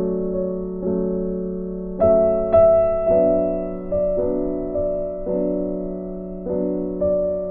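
Background piano music: slow, gentle notes and chords struck about once a second and left to ring.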